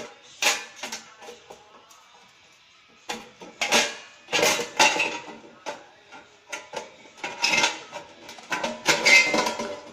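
Stainless-steel sheet-metal housing of a churros machine clanking and knocking against the frame as it is worked loose and lifted off, in several clusters of sharp metallic knocks that ring briefly, the loudest near the end.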